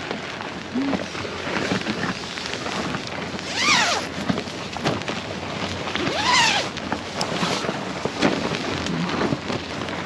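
Strong wind gusting against a camping tent: a steady rushing noise with the tent fabric flapping and rattling, and two brief whistling tones that rise and fall, about four and six seconds in.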